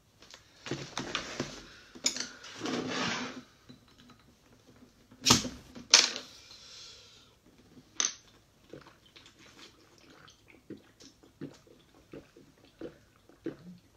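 Rustling of plastic-wrapped food boxes being handled. Then two loud sharp clicks, the second with a short hiss, and a run of soft gulps as a drink is swallowed straight from a bottle.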